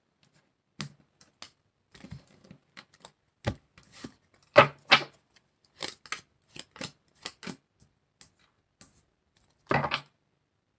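Tarot cards being shuffled by hand and dealt onto a wooden table: irregular clicks and snaps of card stock, a few of them sharper and louder.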